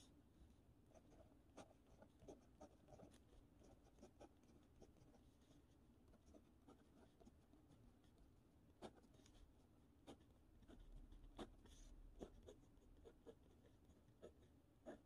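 A pen writing by hand on lined notebook paper: faint scratching, with many short ticks and strokes as each letter is formed.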